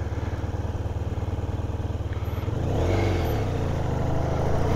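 Motorcycle engine idling with an even pulse, then revving up as the bike pulls away about three seconds in; the pitch dips briefly at a gear change and climbs again.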